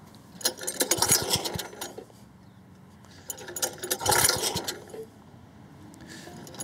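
Two pulls on the recoil starter of a cylinder lawnmower's Robin engine, each a rattling whirr of about a second and a half, the engine cranking without catching after its idle mixture screw was turned in to run leaner.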